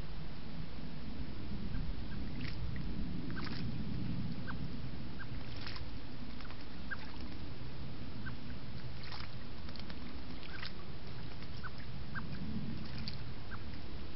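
Common blackbirds splashing in a shallow garden pond, a few brief splashes scattered through, over a steady low rumble. Short, thin high chirps come every second or so.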